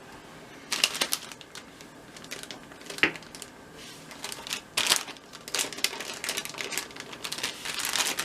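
Plastic toy packaging being handled: irregular crinkling and rustling with sharp clicks and taps, starting a little under a second in.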